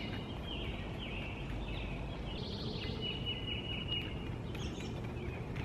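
Songbirds singing and chirping over a steady low background rumble, with a quick trill a little past the middle.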